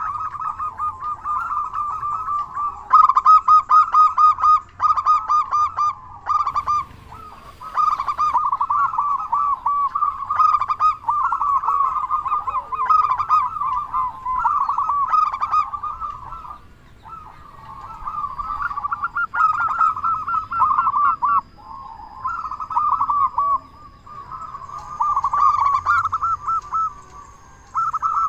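Local zebra dove (perkutut) cooing in fast runs of short, loud notes, in repeated bouts broken by brief pauses. It is the lively, full-voiced song kept birds are played to get them singing.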